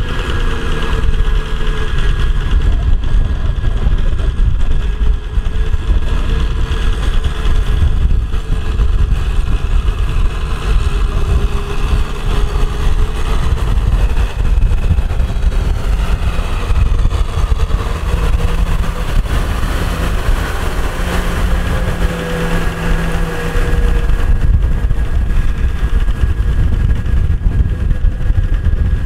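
Mahindra Kubota M6040SU tractor's diesel engine running steadily under load while its puddling rotavator churns through wet paddy mud. The engine note wavers slightly as the load changes.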